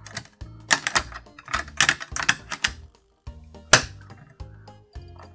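Snap Circuits snap wire being pressed onto the plastic base grid: an irregular run of sharp clicks as its metal snaps seat, the sharpest one near four seconds in.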